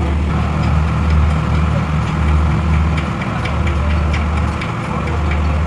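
Engine running steadily at idle, a deep pulsing hum, with light ticks about three a second from about three seconds in.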